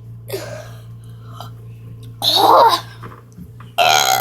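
Forced air burps and throaty burp attempts: a soft one near the start, a loud one about two seconds in and a loud, falling-pitched one near the end, over a steady low hum.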